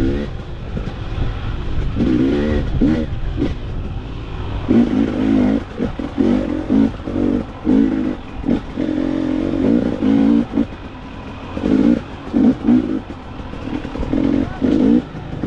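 Dirt bike engine revving in repeated short throttle bursts, the pitch rising and dropping every second or so as the bike picks its way along a tight, muddy forest trail.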